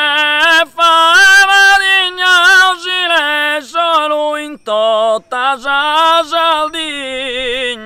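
A single high male voice singing Sardinian canto a chitarra: long, heavily ornamented phrases with wavering trills on the held notes, broken by a few brief pauses for breath.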